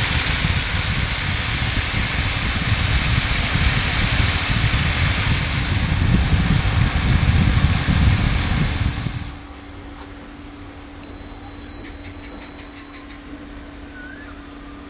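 Marinated chicken pieces sizzling loudly in hot oil in a frying pan, with a steady low hum underneath. Short, high beeps from the electric cooktop come in a quick row at the start, once more about four seconds in, and again in a row around eleven to thirteen seconds. The sizzle drops away sharply about nine seconds in.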